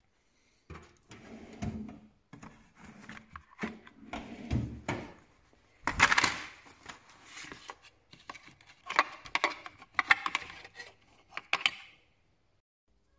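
Tool-handling clatter: rummaging for tools, then a plastic case of steel Allen keys being opened, and the keys clicking against each other and the case as one is pulled out.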